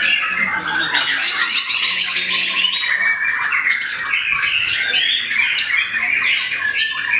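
Many caged songbirds singing at once in a dense chorus of fast, high-pitched trills, chirps and squawks without a break.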